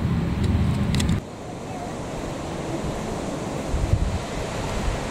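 Wind buffeting the microphone with a low rumble, cut off abruptly about a second in. A fainter, steady outdoor hiss of wind follows.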